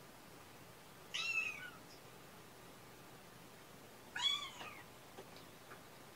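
Kitten meowing twice, about three seconds apart: two short, high calls that each rise and then fall in pitch.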